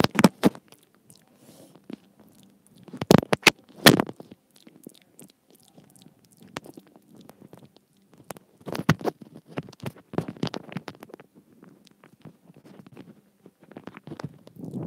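Fingers and long acrylic nails handling a wired earphone's inline microphone right at the mic: scratchy rubbing and clicking in bursts every few seconds, loudest around three to four seconds in and again near nine seconds.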